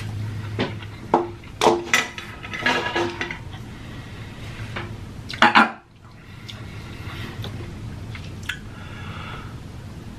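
Light clicks and clinks of chopsticks against a metal tray, several in quick succession over the first three seconds, a louder clatter about five and a half seconds in, and one more click later.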